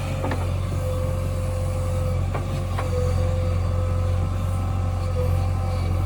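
JCB backhoe loader's diesel engine running steadily, with a few faint knocks over its low hum.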